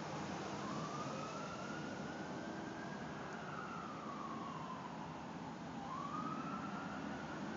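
Emergency vehicle siren wailing at a distance: one slow rise and fall in pitch, starting its next rise about six seconds in, over the steady hum of passing traffic.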